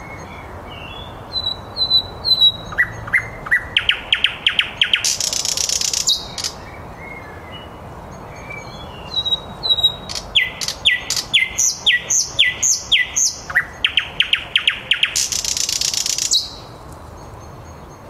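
Thrush nightingale singing two loud song phrases. Each is a fast run of sharp repeated notes that ends in a long harsh, rasping buzz, with a few softer whistled notes before and between them.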